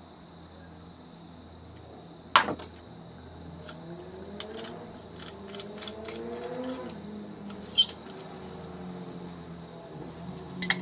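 Small metal torch parts clicking and clinking as they are handled and fitted together: a sharp click about two seconds in, a run of lighter clicks in the middle, and another near the end.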